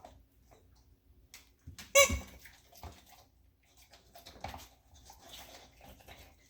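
Rubber chicken squeaky toy giving one sharp, short squeak about two seconds in as the boxer puppy mouths it, with a fainter squeak-like sound a couple of seconds later and soft rustling and pawing in between.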